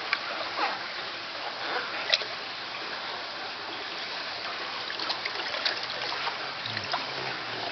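Water running and splashing steadily, with a few short, sharper splashes: one near the start, one about two seconds in, and a cluster a little past five seconds.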